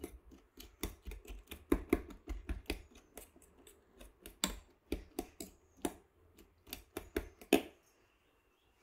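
Metal fork beating raw eggs in a stainless steel bowl, clinking quickly and unevenly against the bowl's sides, with a light sloshing of the egg. The beating stops near the end.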